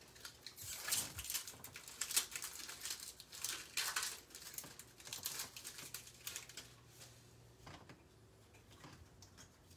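Hockey trading cards and their foil pack wrapper being handled and sorted by hand: irregular soft crinkling and card-on-card rustles and clicks. These are busiest in the first few seconds and thin out toward the end.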